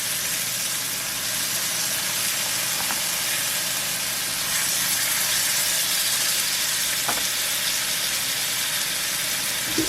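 Marinated bonnethead shark pieces frying in hot olive oil in a cast-iron skillet: a steady sizzle with a couple of faint pops.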